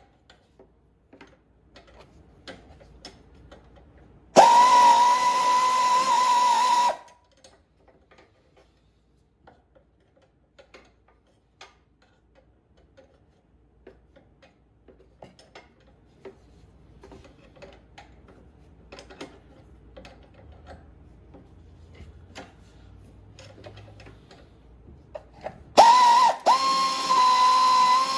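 A power tool's electric motor running with a steady whine in two bursts, one of about two and a half seconds about four seconds in and another starting near the end. Light clicks and knocks of tool handling sound between them.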